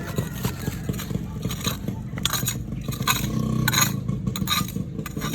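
Metal shovel digging, scraping and chinking against soil and stones in a series of short strokes.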